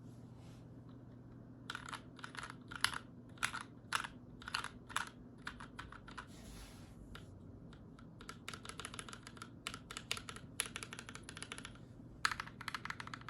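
IDABAO ID80 mechanical keyboard with Gateron Milky Yellow linear switches, lubed with synthetic oil, under Akko keycaps, being typed on. Single keystrokes at first, then fast runs of typing near the middle and again near the end.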